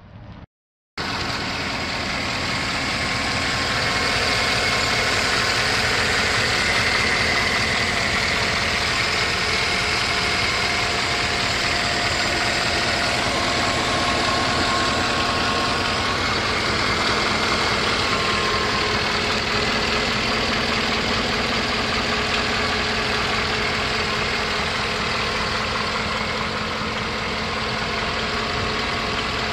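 The 2012 Chevrolet Silverado 1500's 5.3-litre V8 running steadily at idle, coming in about a second in after a brief silence.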